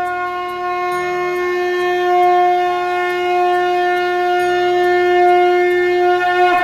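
Conch shell (shankh) blown in one long, loud, steady note with a slight waver near the end, sounded to herald the Ganesh aarti.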